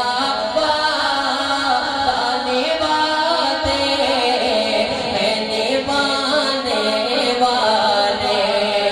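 A man's voice reciting a naat, sung in long, wavering held notes through a microphone.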